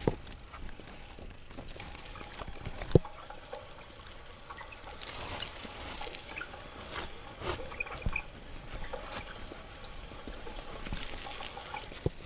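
Mountain bike rolling down a wet, muddy dirt trail: steady tyre noise through mud and over dirt, with a few sharp knocks from the bike hitting bumps, the loudest about three seconds in.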